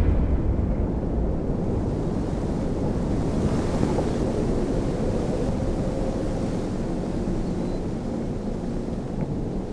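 A steady low rumble with a wind-like hiss over it, and a faint held tone in the middle.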